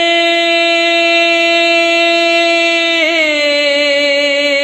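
A man singing a Punjabi Sufi kalam (si harfi) without accompaniment, holding one long note. About three seconds in, the note wavers and settles a little lower, then carries on.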